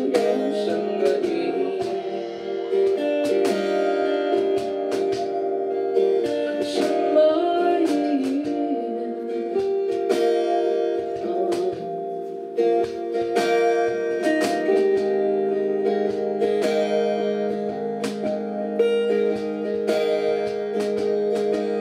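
Live acoustic band music: two acoustic guitars strummed and picked over a steady hand-struck cajon beat.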